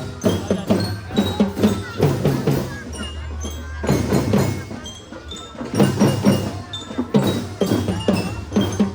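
Children's drum band playing: rhythmic drum strokes under a melody of short, high, bell-like notes from a bell lyre (bellyra).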